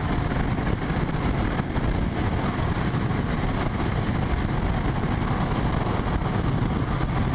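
Motorcycle engine running steadily at road speed through an exhaust fitted with a VW Beetle muffler, with wind rushing on the microphone. No backfire pops are heard; the rider says the muffler has almost cured the loud backfiring.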